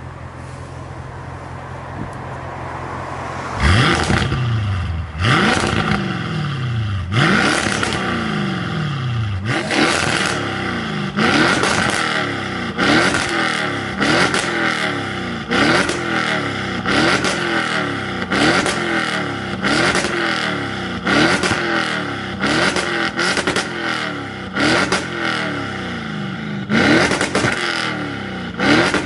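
Audi RS6's twin-turbo 4.0 V8 through an Fi Exhaust valved catback with catless downpipe, idling for a few seconds and then free-revved over and over while parked. Each quick throttle blip rises sharply and falls back toward idle, about one every second and a half.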